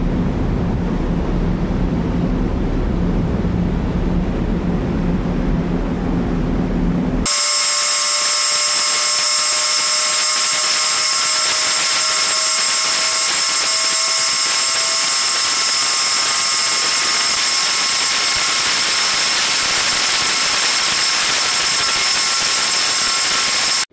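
Wind buffeting the microphone over the rush of the ferry's wake, with a low rumble. About seven seconds in it cuts abruptly to the ferry's machinery on the open top deck: a loud, steady high-pitched hiss carrying several whining tones, one of them slowly rising.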